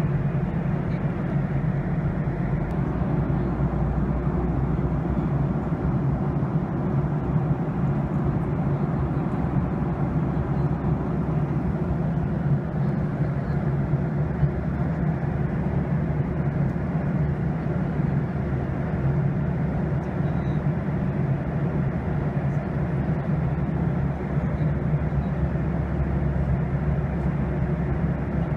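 Airliner cabin noise heard from a window seat: a steady rush of jet engines and airflow during the descent, with a deep hum under it that swells a little a few seconds in and again near the end.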